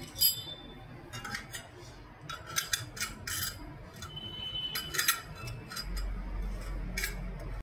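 Stainless steel kitchen utensils clinking and knocking against each other in scattered clusters, with a brief metallic ring around the middle.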